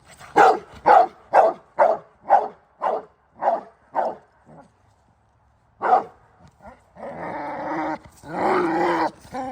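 A dog barking in a quick run of about eight barks, roughly two a second, then one more bark after a short pause, then two longer drawn-out vocal sounds near the end. The dog is alerting at an approaching stranger during protection training.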